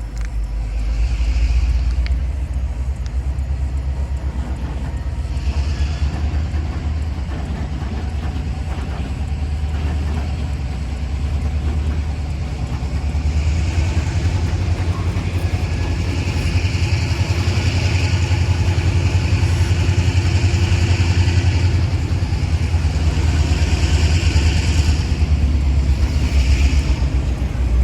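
Diesel freight train running: a steady low engine rumble, with a higher rushing noise from the moving train that comes and goes and is strongest in the second half.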